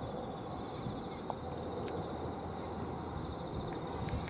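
Outdoor ambience: a steady low rumble of background noise with a continuous high-pitched insect trill, and a couple of faint clicks.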